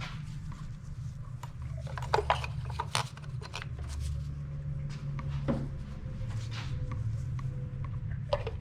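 Scattered light clicks and taps of plastic ignition coil packs being handled and set into the engine's valve cover, over a steady low hum.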